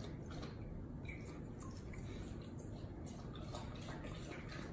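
German Shepherd lapping and nosing water in the bowl of a gravity-feed pet waterer, making small irregular splashes and drips.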